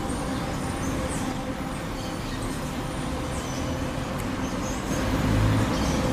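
A steady engine hum, with a low swell about five seconds in and short high bird chirps scattered over it.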